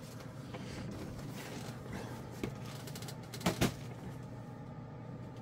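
Cardboard model-kit boxes being handled over a steady low room hum: a soft click, then two quick knocks about three and a half seconds in.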